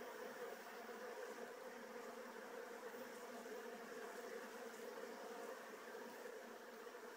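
Honeybees buzzing at a hive entrance: the steady hum of many bees flying in and out around the landing board.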